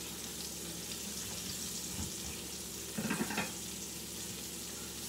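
Catfish filet frying in oil in a cast iron skillet: a steady sizzle. A short, louder clatter comes about three seconds in.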